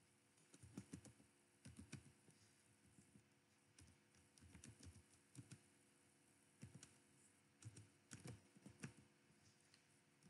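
Faint typing on a computer keyboard, keystrokes coming in short irregular runs.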